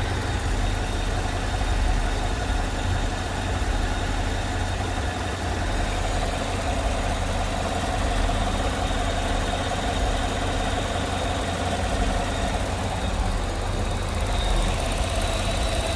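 Car engine idling steadily with its mechanical vacuum pump deleted and the mounting holes plugged. The pump had made a ticking noise that sounded like bad lifters.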